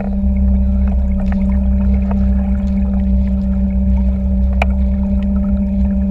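Small boat's motor running steadily under way while towing, a strong even hum. A short knock about four and a half seconds in.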